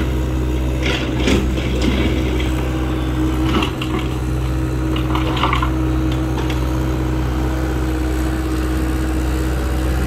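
John Deere 85G compact excavator's diesel engine running steadily, with several short knocks and rattles in the first half as the arm and bucket work.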